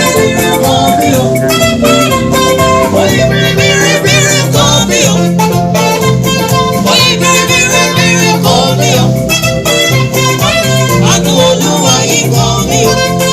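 Live band playing upbeat gospel praise music, with singing over guitar and a steady beat.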